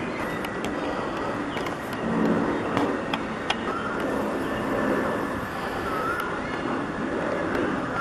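Road traffic noise: a steady rumble and hiss with a few sharp clicks.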